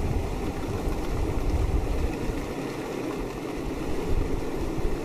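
Wind blowing outdoors, with gusts buffeting the microphone in a low, uneven rumble.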